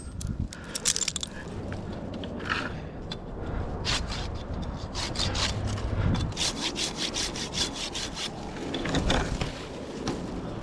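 Wood being scraped and rubbed in a run of short, repeated strokes, with no engine running.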